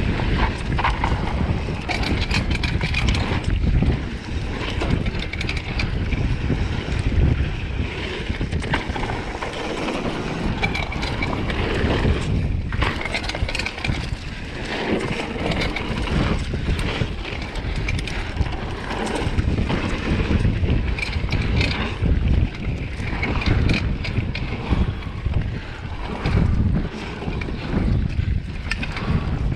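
Mountain bike riding fast down a dirt trail: wind buffeting the microphone over tyre noise on the dirt, with frequent clatter and knocks from the bike over bumps.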